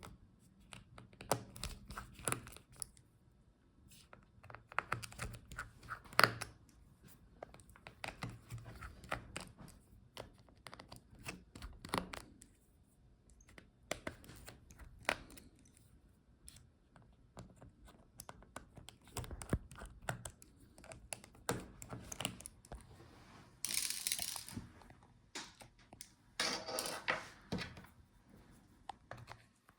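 Small-parts handling inside a laptop: scattered light clicks and ticks of a small screwdriver working screws out of the chassis and of the tool being set down, with one louder click about six seconds in. Late on come two brief rustling scrapes of about a second each.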